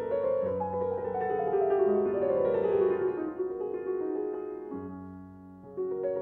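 Piano music: a quick run of notes falling in pitch, then held chords.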